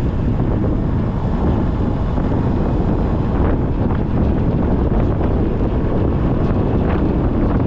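Wind buffeting the microphone over the steady rumble of a vehicle on the move, with a few faint ticks.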